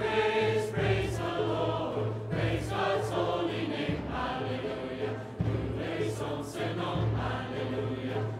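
A choir and congregation singing a lively hymn with instrumental accompaniment, a low bass note pulsing in a regular beat beneath the voices.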